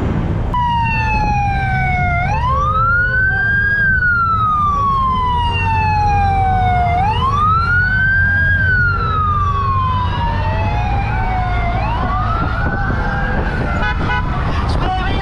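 An emergency-vehicle siren wailing, its pitch rising quickly then falling slowly, about once every five seconds. Under it runs the low rumble of motorcycle engines riding at parade pace.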